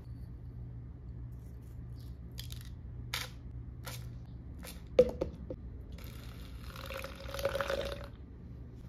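A metal spoon clicking against a jar and a plastic cup several times, the loudest a ringing tap about five seconds in. Then liquid is poured into the plastic cup for about two seconds, splashing onto the spooned coffee at the bottom.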